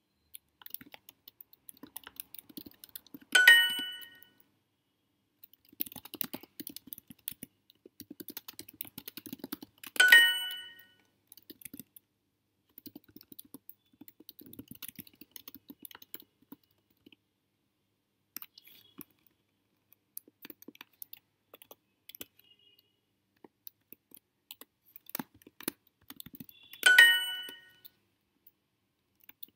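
Computer keyboard typing in quick bursts, broken three times by a loud, bright chime, about three and ten seconds in and again near the end. The chime is Duolingo's correct-answer sound after each submitted translation.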